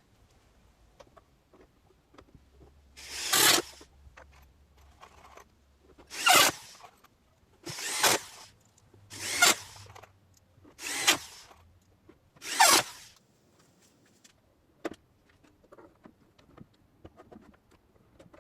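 Six short rasping strokes of a tool working wood, about a second and a half apart, each lasting well under a second.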